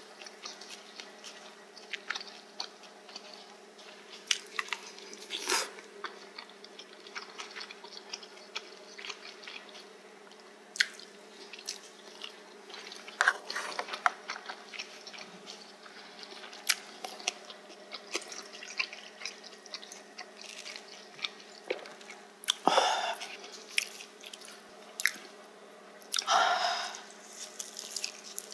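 A person chewing spicy stir-fried pork cartilage close to the microphone: irregular crunchy clicks as the gristle is bitten, with two louder, longer chewing noises in the last third.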